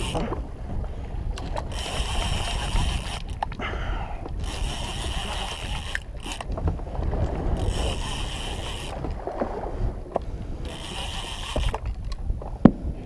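A big-game conventional fishing reel being cranked in spells of about a second, every two to three seconds, as line is regained on a hooked shark, over a steady low rumble of wind. Near the end comes a single sharp boom: a distant gunshot, which the anglers take for another boat shooting a shark to finish it off.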